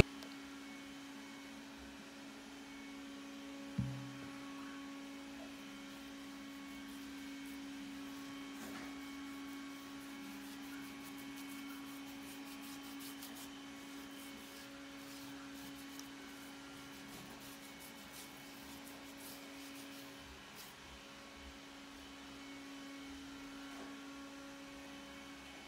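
Faint, steady electrical hum, with a single knock about four seconds in and a few faint ticks in the middle.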